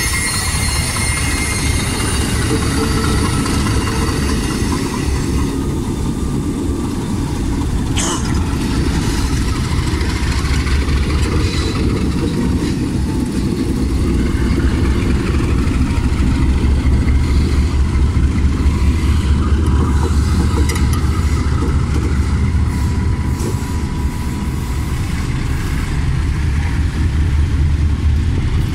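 Freight train passing slowly at close range over a street-running track: steel wheels squealing on the rails near the start, then the diesel-electric locomotive's engine rumbling loudly as it goes by.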